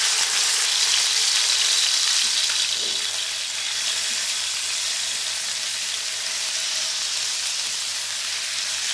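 Sliced raw chicken sizzling in hot oil in a frying pan while a spatula stirs it. The sizzle is loudest at first and eases a little after about three seconds, then holds steady.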